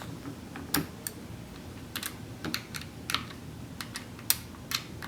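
Irregular light clicks and taps of a hand tool working a screw out of a Tippmann 98 paintball marker's body, about a dozen over a few seconds.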